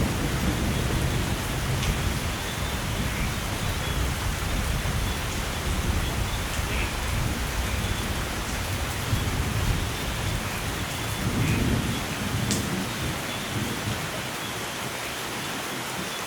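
Steady rain with thunder rumbling low underneath; the rumble swells once more about eleven seconds in, then dies away near the end while the rain goes on.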